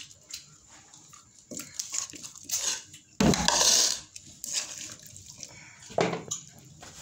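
Metal spoon scraping and clinking against a metal karahi and plates as meat curry is served out. A louder burst of noise lasting under a second comes about three seconds in, and another sharp clatter near six seconds.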